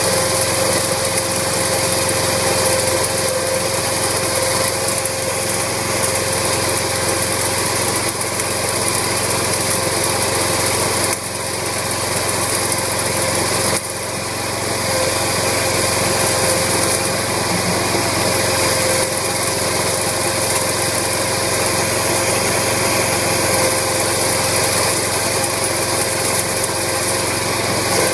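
Small gasoline engine of a Struck RS196 tracked mini tractor running steadily, its pitch holding level. The loudness dips briefly twice partway through.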